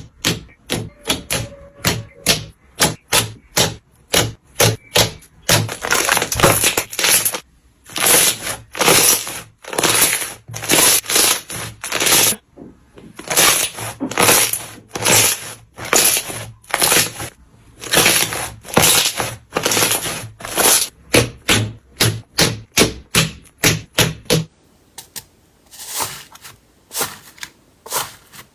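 Slime being squeezed and poked by hand, giving sharp, rapid clicks and pops that come a few a second and bunch into dense crackling runs.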